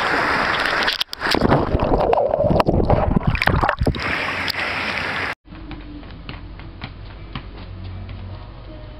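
Rushing, splashing water on a water slide, loud and jumbled for a few seconds as the riders slide down and plunge into the water. It cuts off suddenly about five seconds in, leaving a much quieter room with a few faint ticks.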